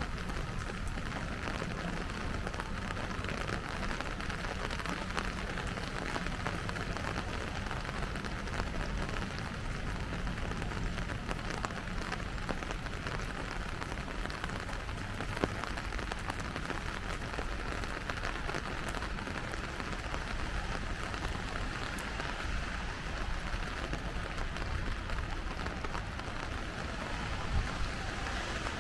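Steady rain falling and spattering, an even hiss over a low rumble, with the odd single drop ticking.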